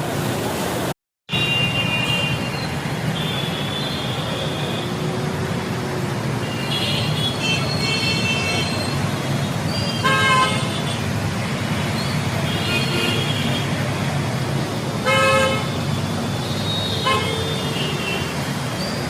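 Steady wash of rain and road traffic, with vehicle horns honking again and again: short high toots throughout and louder honks about ten, fifteen and seventeen seconds in. The sound cuts out completely for a moment about a second in.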